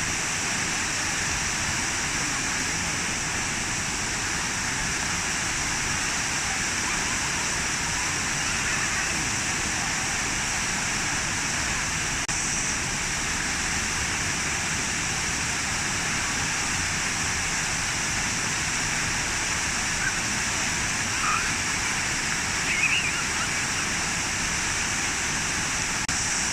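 Running water in a park water feature, a steady even rush. A few brief faint high sounds come near the end.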